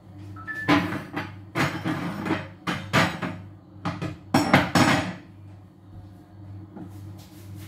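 Irregular loud knocking and clattering of hard objects, about a dozen sharp strikes over some four seconds, starting just after a short two-note beep, over a steady low hum.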